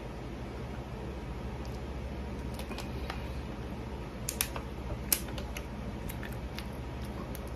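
A few short sharp clicks and taps of a plastic water bottle being handled and set down after a drink, the two loudest about four and five seconds in, over a steady low hum.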